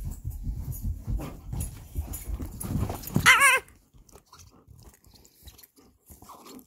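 Belgian Malinois at play: low rumbling and scuffling for about three seconds, then one short, high, wavering whine or yelp, after which only faint clicks remain.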